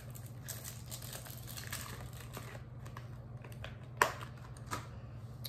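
Small packaged cosmetics being rummaged through by hand: light clicks, taps and crinkles of plastic and cardboard packaging, with one sharp knock about four seconds in.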